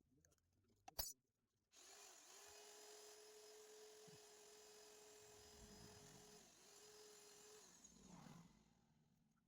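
A small power tool's motor running steadily for about seven seconds, with a hissing wash over it. It dips briefly twice, once near the start and once about three-quarters of the way through, then winds down. A sharp click sounds just before it starts.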